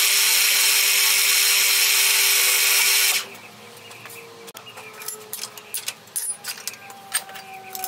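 Bench mill-drill running and drilling an aluminium plate, a loud steady noise that stops sharply about three seconds in. The spindle then coasts down with a slowly falling hum, while sharp metallic clicks come from a spanner on the hold-down clamp.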